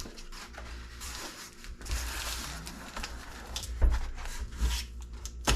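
A large cardboard shipping box being handled and worked at to open it: scraping and rustling of cardboard, with a few sharp knocks, the loudest near the end.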